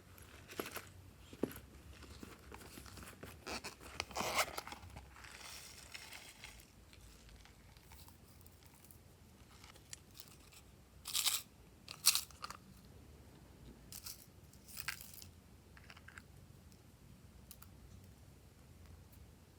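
Hands working glossy slime: scattered sticky clicks, squishes and crackles, with a few louder bursts.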